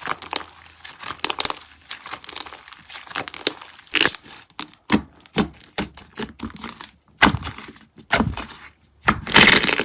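Slime being squeezed and pressed by hand, giving an uneven run of sharp crackles and popping clicks, with a denser stretch of crackling near the end.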